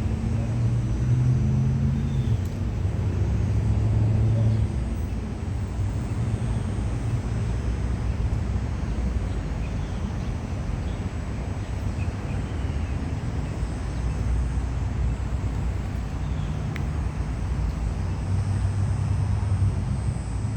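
Steady low rumble of a motor vehicle, with a deeper hum that swells in the first few seconds and again near the end.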